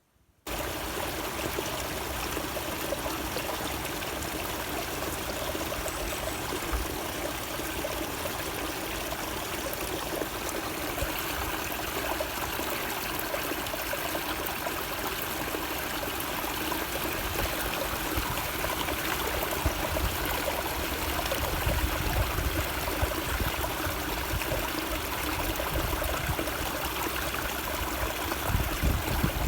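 Spring water flowing and trickling in a small stream, a steady rushing and splashing. A low rumble swells in now and then, most in the last few seconds.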